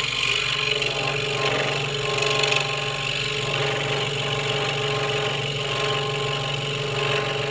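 Scroll saw cutting down a line through a wooden board: a steady rasping cut from the reciprocating blade over the saw's constant motor hum.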